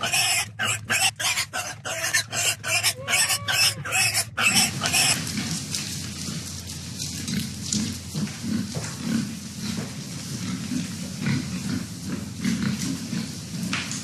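Pigs grunting: loud and choppy for the first four seconds or so, then lower and steadier.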